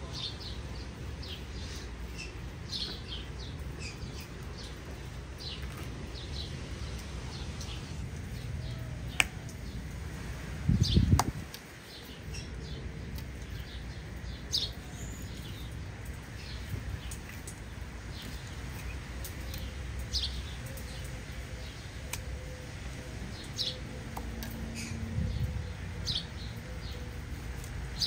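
Small birds chirping repeatedly, short high notes every second or two, over a steady low rumble. A short loud low rumble about eleven seconds in.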